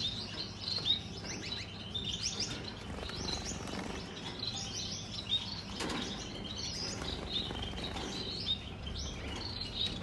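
Many caged finches chirping and calling at once, short high chirps overlapping without pause.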